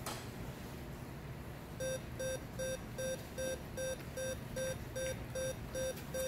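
Bluetooth speaker box beeping in sync with the remote button of a Mini Educator ET-300 dog training collar: a steady run of short, even beeps, about two and a half a second, starting about two seconds in, each beep marking the collar being triggered.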